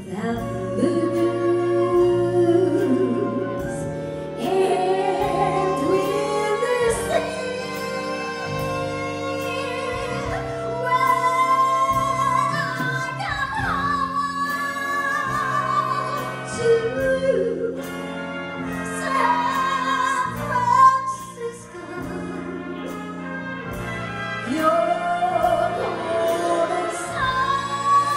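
Female vocalist singing with a jazz big band of saxophones, brass, piano and drums behind her.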